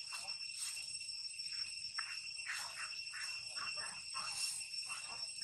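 Steady high-pitched insect drone made of several held tones, with a dozen or so short, falling chirp-like calls at irregular intervals over it.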